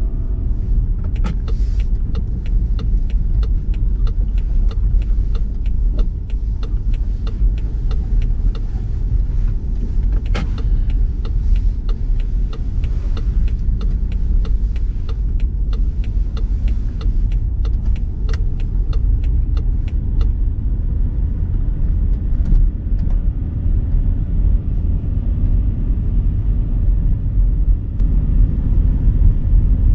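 BMW X3 driving on a snowy road: a steady deep rumble of tyres and engine, with many small ticks and clicks over the first twenty seconds or so that then stop.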